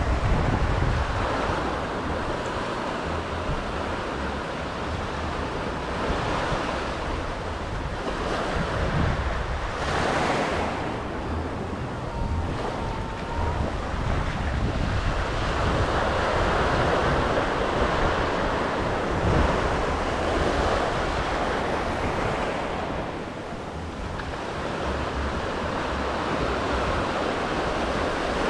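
Small ocean waves washing in and breaking at the shore, rising and falling in surges, with wind rumbling on the microphone.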